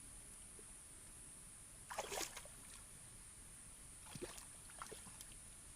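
Muddy pond water splashing and sloshing as hands grope through it for fish: a short burst of splashing about two seconds in, and smaller splashes about four and five seconds in.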